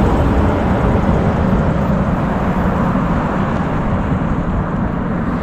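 Wind buffeting the microphone, a steady rumbling noise, mixed with traffic on the street.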